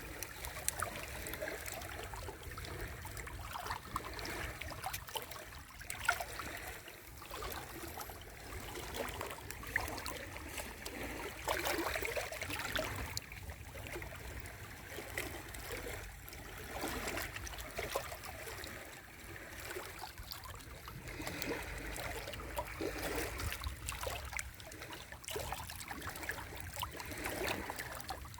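Small sea waves washing in at the shore: a continuous wash of splashing, trickling water that swells twice as waves come in.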